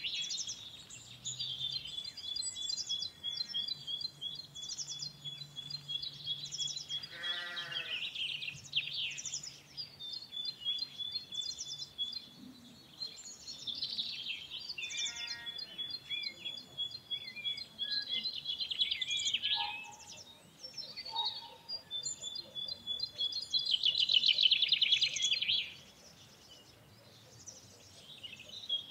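Farmyard ambience: many small birds chirping busily and continuously, with a farm animal giving one loud bleat about seven seconds in and a fainter bleat around fifteen seconds.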